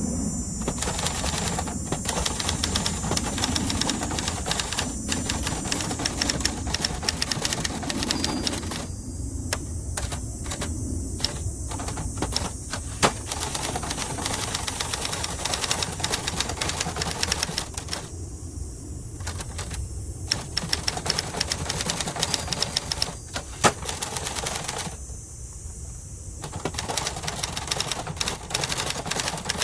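1970s Adler Gabriele 25 manual typewriter being typed on: fast runs of key strikes with a few short pauses. Two strikes, about a third of the way in and past the middle, stand out louder than the rest.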